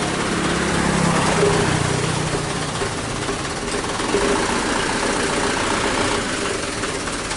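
Truck's diesel engine running steadily, a little louder about a second in and again about four seconds in.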